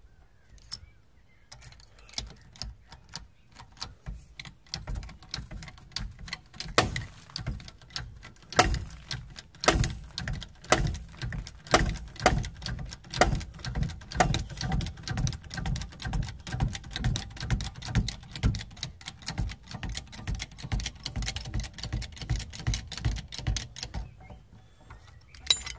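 15-tonne hydraulic puller's hand pump being worked to press a halfshaft out of its hub: a run of sharp clicks with a dull knock in each, a few a second, that starts sparsely, becomes steady after a few seconds and stops shortly before the end, where a few metallic clinks follow.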